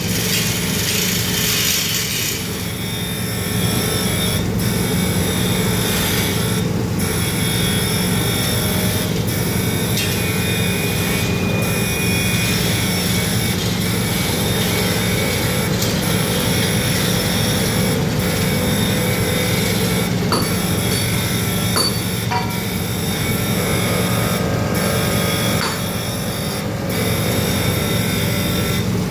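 Surface grinder running: a steady machine hum under the rasp of the grinding wheel, with a brief dip in the sound about every two seconds.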